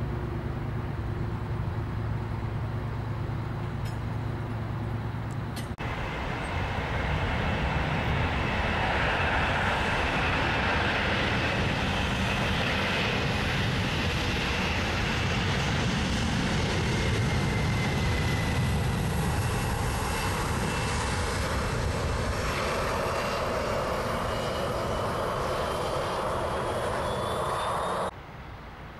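Boeing 747-400's four jet engines at takeoff thrust: a steady lower rumble that swells about six seconds in into a loud roar with whining fan tones above it, breaking off abruptly near the end.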